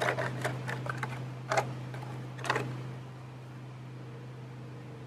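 A brush or small roller clicking and scraping in a cut-off plastic bottle of fibreglass resin as it is loaded to spread over fibreglass tape, a handful of short strokes in the first two and a half seconds. A steady low hum runs underneath.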